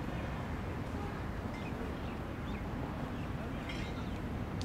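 Steady outdoor background noise with a few faint, short chirps.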